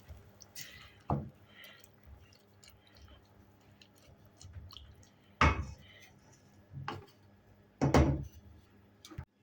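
Kitchen handling noises: four dull knocks and clunks of cookware and utensils, one about a second in and three in the second half, with faint small clicks and rustles between them.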